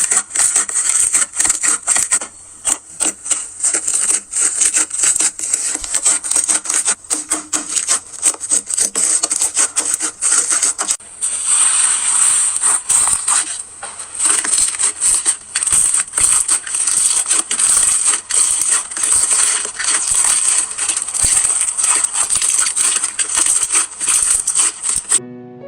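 Crunchy slime being worked, giving dense, rapid crackling and popping, with a change in texture about halfway through.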